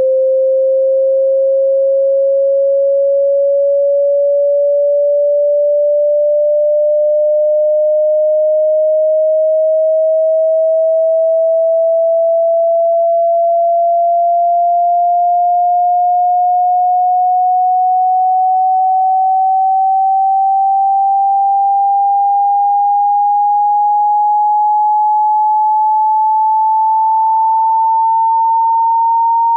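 Pure sine-wave hearing-test tone sweeping slowly and steadily upward in pitch, climbing nearly an octave at an even loudness.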